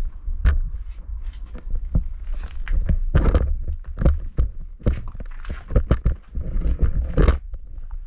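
Footsteps scuffing and knocking on rock and grit, irregular steps and scrapes over a low, constant rumble.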